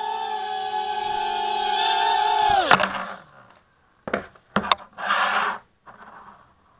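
Micro quadcopter's 8.5 x 20 mm motors and clear propellers whining steadily in a hover, then spinning down sharply about two and a half seconds in as it comes down. After that come a couple of light clicks and knocks and a short scraping rub.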